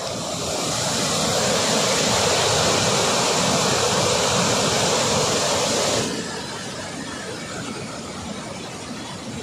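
Water rushing out of a dam's open spillway gates, a loud steady roar. It falls off abruptly about six seconds in to a quieter steady rush.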